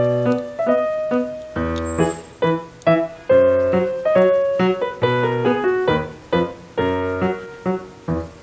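Background music: a light piano or electric keyboard tune with bouncing chords and bass notes.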